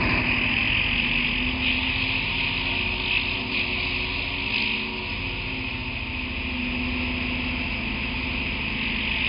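Two-stroke engine of a 33cc BG328 backpack brush cutter running steadily.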